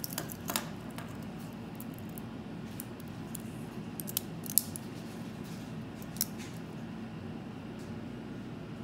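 Scattered small metallic clicks and clinks of a stainless-steel watch bracelet being handled, the sharpest about four and a half seconds in, over a faint steady hum.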